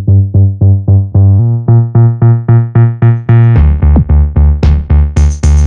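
Electronic background music with a steady pulsing beat of about four notes a second. It grows brighter and fuller from about three and a half seconds in.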